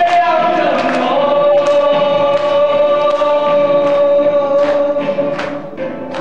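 Dramatic film score: choir voices holding long notes over sharp percussion hits, fading toward the end.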